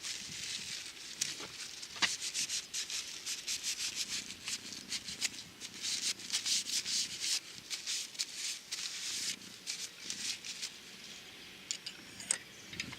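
Rapid back-and-forth rubbing on a surface, quick scratchy strokes in an uneven rhythm that ease off near the end.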